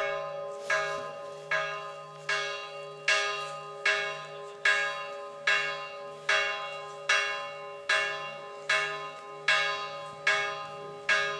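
A single church bell struck over and over at a steady pace, a little more than one stroke a second, each stroke still ringing as the next one lands.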